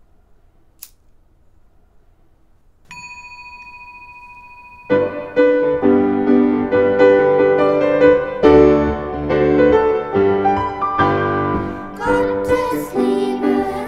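A small metal singing bowl struck once with its wooden mallet, ringing with a steady, layered tone and fading slowly. About two seconds later the ringing is cut off and piano music starts, playing on to the end.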